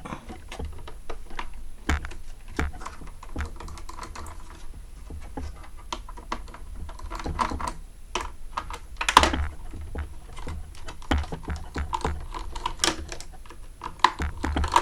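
Irregular small clicks, taps and knocks of a set-top box being taken apart by hand: screws, plastic and metal parts handled and worked loose, with one louder knock a little past the middle.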